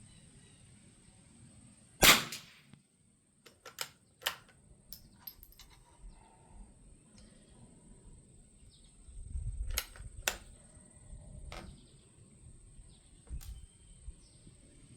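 A single shot from a Winchester Model 52 bolt-action .22 rimfire target rifle about two seconds in, followed by a series of lighter metallic clicks and clacks from the bolt being worked and a round single-fed by hand.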